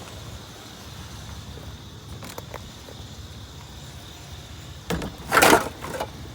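Low, steady rumble of a vehicle's engine idling, with a few faint clicks about two seconds in, then a loud, brief clatter near the end.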